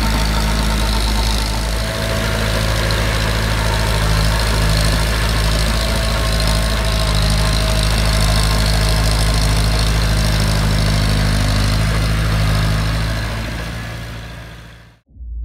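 Massey Ferguson 185 tractor's four-cylinder diesel engine running steadily while the half-tracked tractor works through flooded paddy mud; the sound fades out near the end.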